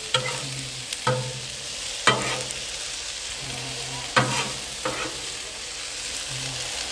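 Metal spatulas knocking and scraping on the steel top of a Blackstone griddle as shredded hash browns are flipped and mixed, about five sharp clanks roughly a second apart. Underneath is a steady sizzle of the potatoes frying.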